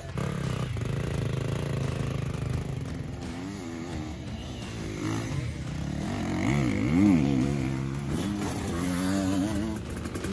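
Dirt bike engine running steadily, then revving up and down in repeated rises and falls of pitch, loudest about seven seconds in.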